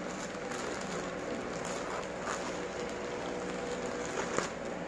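Scissors snipping through a plastic mailer bag, with the plastic crinkling; a few short clicks, the sharpest a little before the end.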